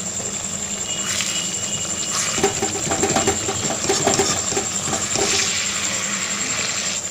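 Hilsa fish pieces sizzling in a thick mustard-oil masala in a kadai while they are turned over. The frying gets louder, with rapid popping, from about two and a half seconds in to about five and a half.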